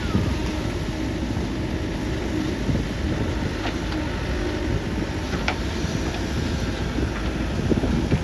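JCB 3DX backhoe loader's diesel engine running steadily under work, with a few faint sharp clinks.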